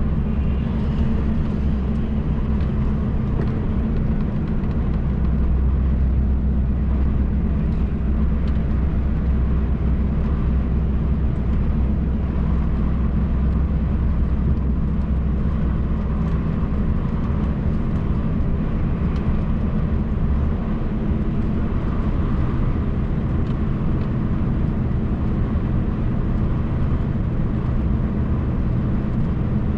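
MAN TGX truck's straight-six diesel engine and tyre noise droning steadily inside the cab while driving at motorway speed. The deepest part of the hum fades about twenty seconds in.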